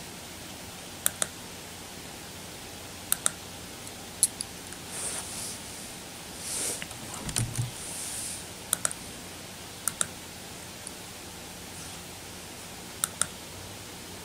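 Computer mouse clicking: short sharp clicks, several in quick pairs, a few seconds apart. Soft rustling in the middle, over a steady background hiss.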